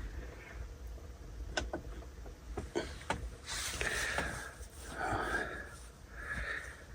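Faint handling noises: a few light clicks followed by soft rustling.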